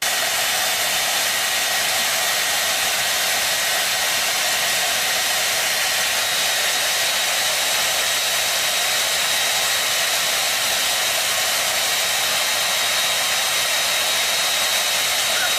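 Handheld electric hair dryer blowing on a steady setting: an even rush of air with a thin, high motor whine.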